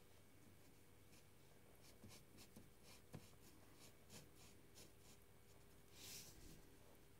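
Faint scratching of a fine-tip colouring pen on paper: a dozen or so short, irregular strokes, with one longer, louder stroke about six seconds in.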